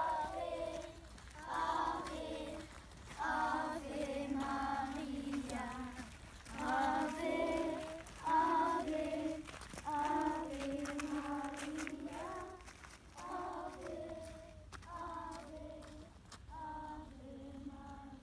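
A group of children singing a song together in unison, in short phrases one after another.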